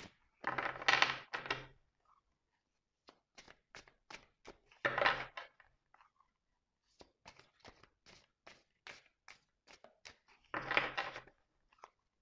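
A deck of cards being shuffled by hand: a string of light taps and flicks as cards slide and drop onto the pack, with three louder rustling runs of cards, about half a second in, about five seconds in, and near the end.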